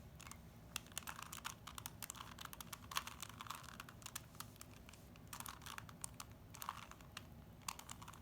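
Plastic 3x3 Rubik's Cube being turned by hand: its layers click and clack in quick, irregular runs as they are twisted around.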